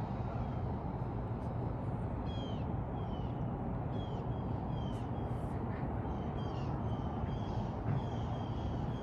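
A bird calling over and over in short, high, downward-sliding chirps, about two a second, over a steady low rumble.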